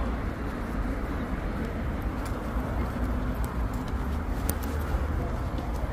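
Steady outdoor street ambience: a low rumble with a hiss above it, and a few faint ticks in the middle.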